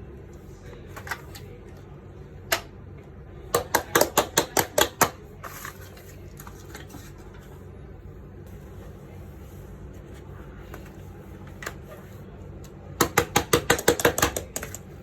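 Sharp clicks in two quick runs of about six to seven a second, with a single click before the first run, over a steady low hum.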